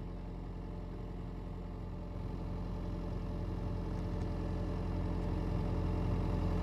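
Hitachi excavator's diesel engine running steadily, its low note gradually getting louder as the hydraulics work the arm and open the bucket.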